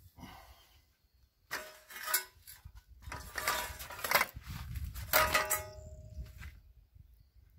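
Clattering knocks as parts are handled and fitted against a tractor's steel wheel rim and hub. There are three main clusters of strikes, and several ring briefly.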